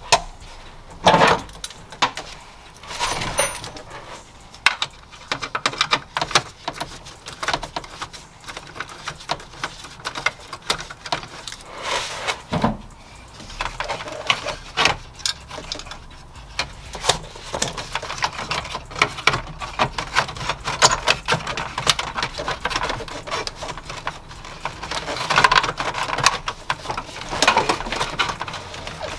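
Irregular clicks, knocks and rattles of hands working loose plastic dashboard trim, wiring and connectors in a car's dash, with the sharpest knocks about a second and three seconds in.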